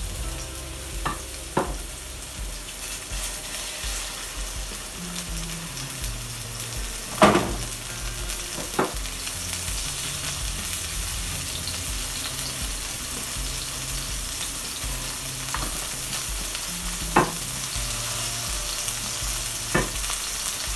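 Minced chicken patties sizzling in shallow oil in a nonstick frying pan, a steady hiss. A spatula clicks against the pan now and then as more patties are laid in, the loudest about seven seconds in.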